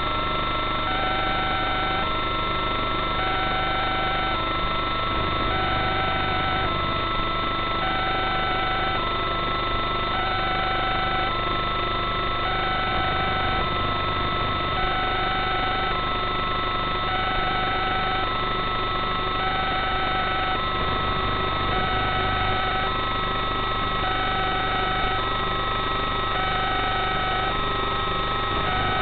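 Steady electrical hum and fixed whining tones on an FPV video link's audio track, with a repeating electronic tone pattern that pulses on and off about every one and a half seconds.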